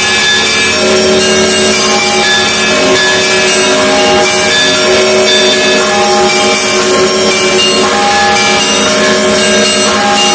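Russian Orthodox monastery bells ringing in a continuous peal, many bells of different pitches struck in turn with their tones ringing on and overlapping.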